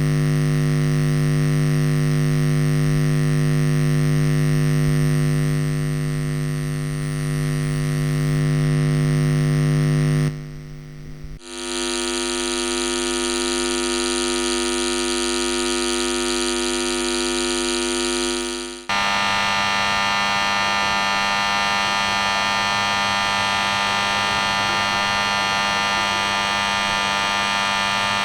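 Traffic-light electrical buzz in three versions one after another: a low steady hum with many overtones, then after a short dip about ten seconds in a different steady buzz, and from about nineteen seconds a brighter, more rasping buzz.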